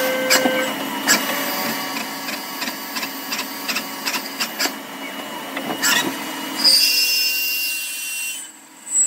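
CNC lathe live tooling drilling and end-milling a white plastic bar under coolant spray: steady machining noise with a faint hum and scattered clicks. A louder hiss comes in near the end, then the noise drops away suddenly.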